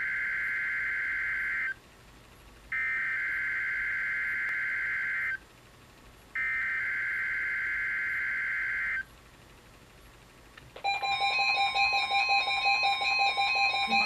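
Weather alert radio speaker playing the NOAA Weather Radio SAME data header for a weekly test: three screeching digital bursts of about two and a half seconds each, with short pauses between. About eleven seconds in, a loud steady alert tone starts, with a rapid on-off beeping over it.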